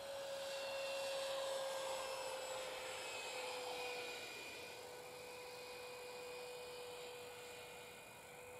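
Electric ducted fan of a Freewing F9F Panther RC jet whining steadily in flight, loudest about a second in, then fading as its pitch sinks slightly while it passes and moves away.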